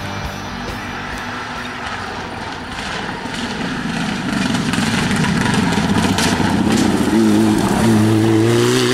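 Mitsubishi Lancer Evo IX rally car's turbocharged four-cylinder engine approaching at speed, growing louder. In the last two seconds it comes close under acceleration, its engine note clear and rising steadily in pitch.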